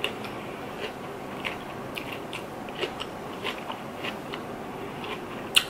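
A person chewing a mouthful of food: a run of short, crisp mouth clicks about two a second, with one louder click near the end.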